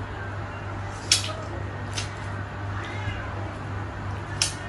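Metal spoon clinking against a bowl a few times while eating, over a steady low hum. A faint, short, high rising-and-falling call comes about three seconds in.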